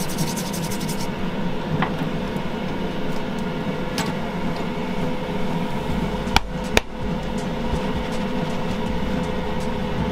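Steady machine hum, with a few sharp clicks, two of them close together a little past the middle.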